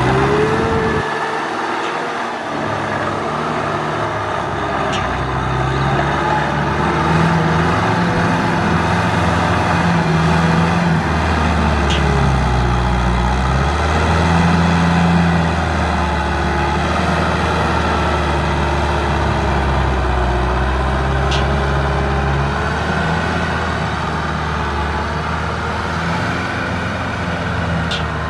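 Kubota M6040SU tractor's four-cylinder diesel engine running steadily under load as it pulls a rotary cultivator through wet rice-field mud. Its pitch shifts a little up and down in the middle.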